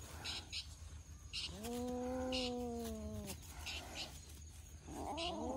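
Cats meowing: one long drawn-out meow of about two seconds in the middle, then two cats calling over each other near the end. Short high chirps come every second or so in between.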